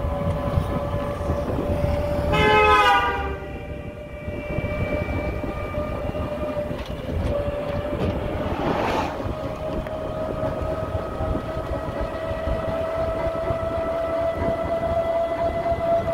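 Riding in an auto-rickshaw: a steady high motor whine that rises slowly in pitch over road rumble and wind. A vehicle horn sounds once for about a second, a couple of seconds in, and a brief rush of noise passes about nine seconds in.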